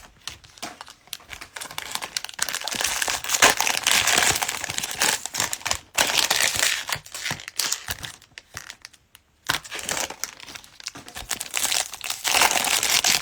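Cellophane wrapper of a trading-card cello pack crinkling and being torn open by hand, in irregular stretches with a brief pause about nine seconds in.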